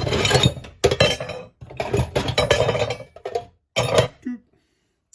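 Small cast aluminium scrap parts clattering and clinking together as they are gathered and dropped into a pile, in four bursts that stop short about four and a half seconds in.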